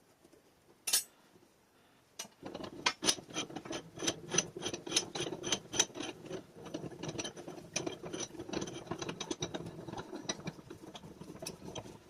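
Wilton bench vise's main screw being cranked out by its handle: a fast, continuous run of metallic clicking and rattling from about two seconds in, the bare threads turning dry without lubrication.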